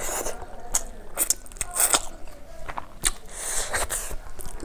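Close-miked eating sounds: chewing with wet lip smacks and sharp clicks, and a longer breathy hiss about three and a half seconds in.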